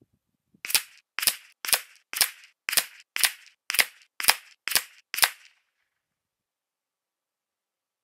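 Ten short, sharp gunshot cracks about half a second apart, too quick for a bolt-action to fire, so a cut-together run of shot sounds matching a ten-shot group of .22 rimfire match ammunition.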